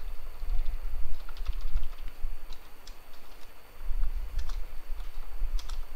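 Typing on a computer keyboard: irregular quick key clicks while code is edited, over a low rumble that is the loudest part of the sound.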